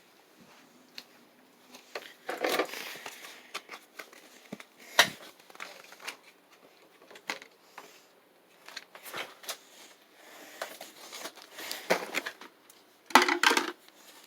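Plastic blister packaging of a Hot Wheels toy car crinkling and crackling with irregular clicks and snaps as it is handled and opened, with the loudest bursts about two and a half seconds in, around five seconds in and near the end.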